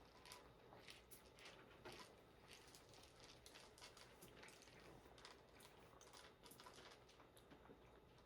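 Faint, irregular scraping and clicking of cat litter as a litter box is cleaned out, a few small ticks a second.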